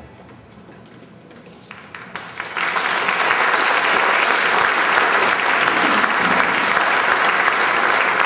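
Audience applauding: a few scattered claps about two seconds in swell quickly into full, steady applause.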